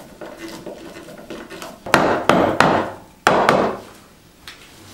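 A self-tapping screw being turned into a wooden block with a hand screwdriver, with faint creaks and clicks. A little after two seconds in come about five sharp wooden knocks in two quick groups.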